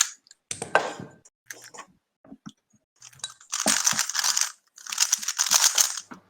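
A speed cube (3x3 puzzle cube) being turned by hand: scattered plastic clicks, then two dense bursts of rapid clacking layer turns, each about a second and a half long.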